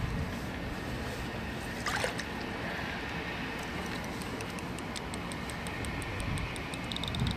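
Small ice-fishing reel ticking as it is cranked, a regular clicking of about three or four ticks a second that starts about halfway through and gets faster and louder near the end, over a steady rumble of wind on the microphone.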